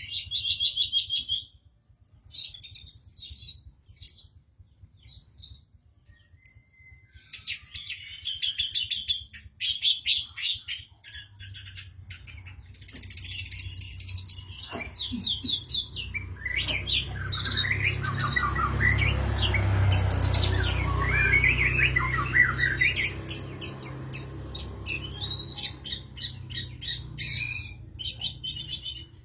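Orange-headed thrush singing in short, varied phrases of high whistles and chatter, with brief pauses between them. A low rumble swells up through the middle and fades away again while the singing goes on.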